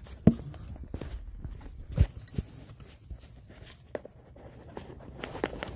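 Handling noise from a handheld camera being moved about under a car's dashboard: a few scattered knocks and clicks, the sharpest just after the start, over faint rustling.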